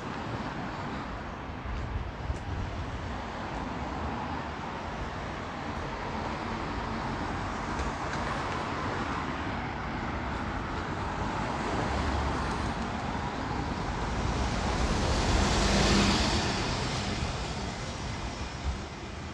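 Road traffic noise on a town street, with one vehicle passing close by and loudest about three-quarters of the way in.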